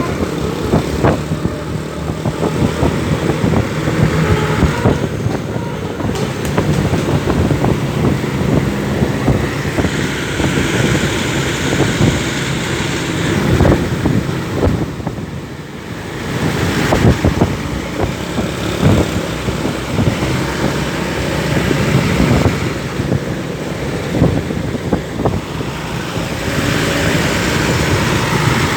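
Busy road traffic: engines running and vehicles passing close by one after another, the rush of noise swelling and fading several times.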